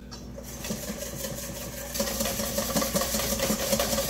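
Wire whisk beating egg yolks and lemon juice in a stainless steel bowl set over a pot of hot water, the first stage of a hollandaise sauce. The wires scrape and clink fast and evenly against the metal, and the whisking grows louder about two seconds in.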